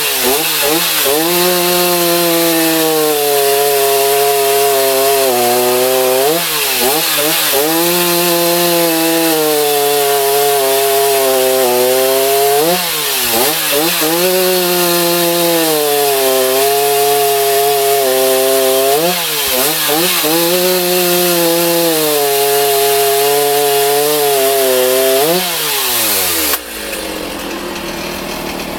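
Stihl MS 390 two-stroke chainsaw running at high revs, cutting wood. Its engine note dips and recovers about every six seconds. Near the end the revs fall away and it drops to idle.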